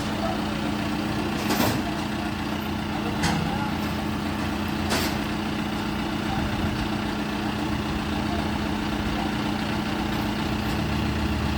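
Engine idling steadily, with three sharp knocks or clanks in the first five seconds, roughly evenly spaced.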